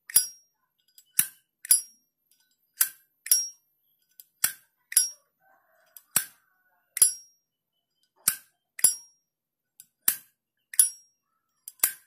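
Brass Zippo-style replica lighter's lid flicked open and snapped shut repeatedly: sharp metallic clinks in pairs about half a second apart, about seven pairs, many with a brief high ring.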